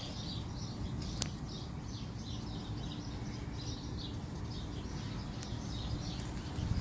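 Small birds chirping repeatedly over a low, steady outdoor rumble.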